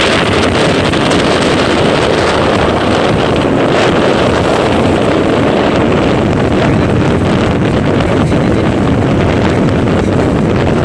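Strong, steady wind buffeting the microphone over the constant rush of a moving ship at sea.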